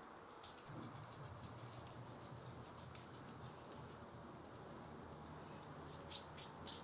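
Salt being added to raw chicken pieces: a faint scratchy rustle, with a quick run of ticks near the end.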